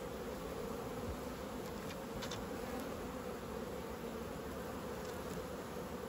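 Steady hum of a honeybee colony buzzing over the exposed frames of an open brood box.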